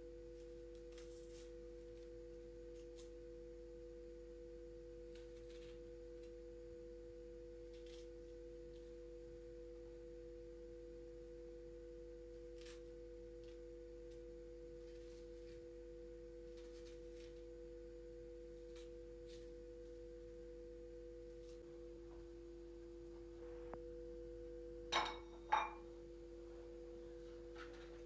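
A steady low hum on two pitches with faint scattered clicks of handling, broken about three-quarters of the way through by two sharp clanks of something set down or knocked, about half a second apart.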